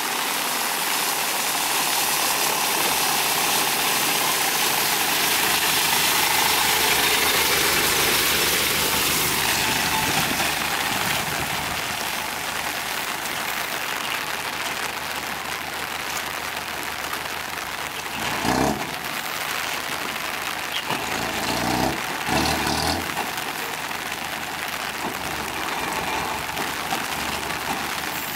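Truck engine idling under a steady hiss of rain, with short louder bursts about eighteen and twenty-two seconds in.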